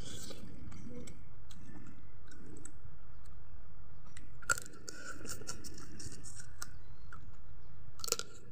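Close-up chewing and crunching of chicken pieces on the bone, eaten by hand, with sharp crunching bites. The loudest bites come about halfway through and just before the end.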